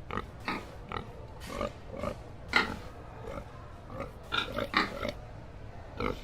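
Pig grunting: a string of short separate grunts, about a dozen, with the loudest a little before halfway and a quick run of several grunts about two thirds of the way in.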